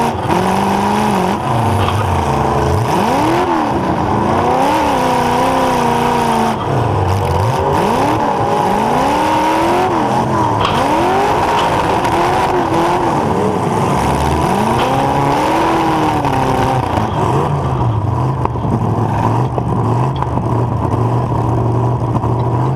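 Demolition derby car engine heard from inside the car, revving up and falling back over and over as the car is driven back and forth, then holding a steadier lower speed for the last few seconds.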